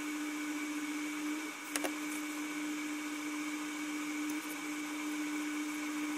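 Steady background hum with hiss, like a small motor running, with two faint clicks about two seconds in as small plastic model parts are handled.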